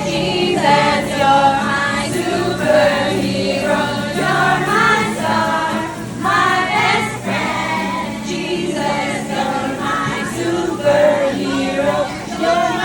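A group of children singing together in chorus, one sung line after another.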